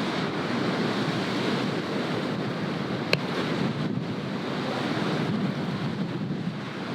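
Ocean surf washing steadily on the beach, mixed with wind buffeting the microphone; a single short click about three seconds in.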